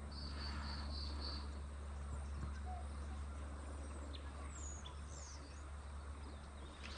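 Quiet riverside ambience: a steady low rumble under a faint hiss. A few faint, high bird calls come through, a short trill about a second in and some quick falling notes around the middle.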